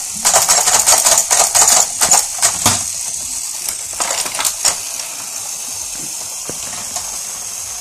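Hard plastic toy railway pieces clicking and rattling in quick, irregular clicks for about three seconds, with a few more clicks around four seconds in.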